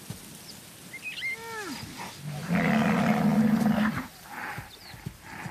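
Black rhinoceros calling: a short falling squeal about a second in, then a louder, steady low-pitched call lasting about a second and a half.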